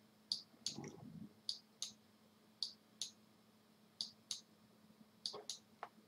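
Computer mouse button clicking, short sharp clicks mostly in pairs (press and release), about one pair a second, as tick marks are drawn one by one with the mouse.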